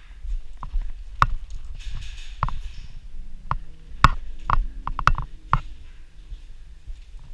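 A series of short, irregular knocks and clicks, about a dozen, unevenly spaced and bunched together around the middle.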